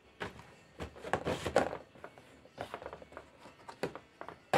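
Wooden clothespins handled in a plastic tub: scattered light clicks and rubbing at irregular intervals.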